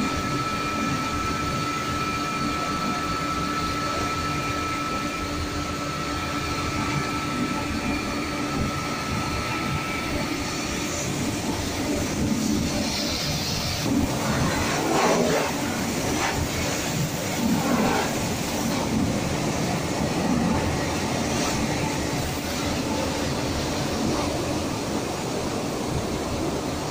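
Automatic train-washing plant running: motor-driven rotary brushes scrubbing a passenger coach's side under spraying water, a steady rush of water and machinery. A thin steady whine sounds through the first ten seconds or so, then louder swells of splashing and scrubbing.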